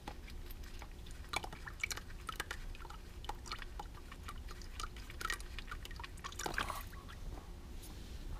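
Faint clicks and scrapes of a gloved hand unscrewing an engine oil drain plug on a Honda Gold Wing, with oil dripping into a drain pan. A brief louder rush comes about six and a half seconds in.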